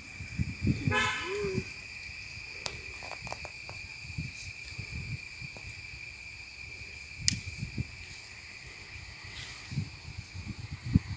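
Rural outdoor ambience: a steady high-pitched insect drone, with a short horn-like toot about a second in and a couple of faint sharp clicks.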